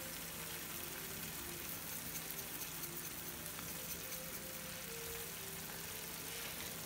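Vegetable pisto in tomato sauce sizzling softly in a frying pan, a steady low crackle as it cooks.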